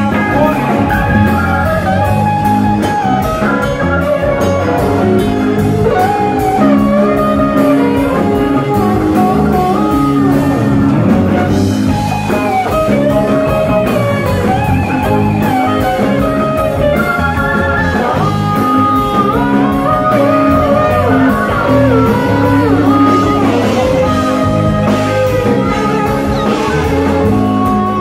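Live rock band playing an instrumental jam: an electric guitar lead with sliding notes over keyboard, bass guitar and drum kit.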